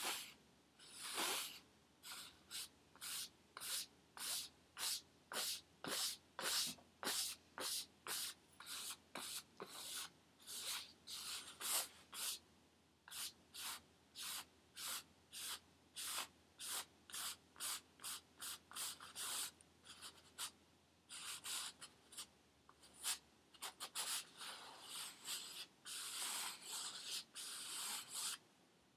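Paintbrush bristles scraping across a stretched canvas in quick back-and-forth strokes, about two a second, becoming a denser scrubbing near the end.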